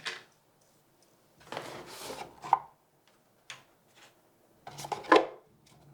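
Cardboard watch packaging being handled. There is a stretch of rubbing and sliding about a second and a half in, then a couple of light taps, then more rubbing near the end.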